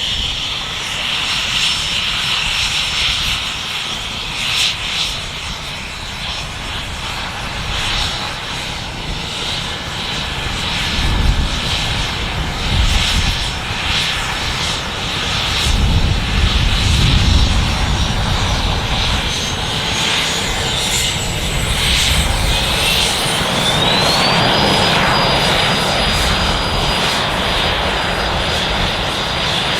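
A fixed-wing aircraft's turbine engine running, with a steady high whine and a low rumble that swells twice. About three-quarters of the way through, the whine rises sharply in pitch and then holds steady as the engine spools up.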